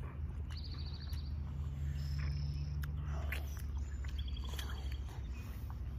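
Outdoor field ambience over a steady low rumble, with short high chirping trills twice, near the start and about four seconds in, and faint sounds of a child biting and chewing watermelon.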